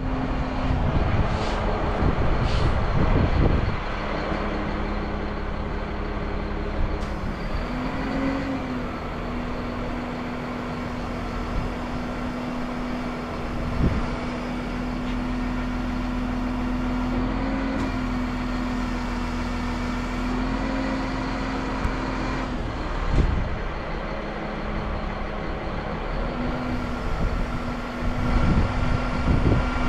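A heavy-equipment diesel engine running steadily at idle, its note lifting briefly a few times. A couple of short metallic knocks sound partway through.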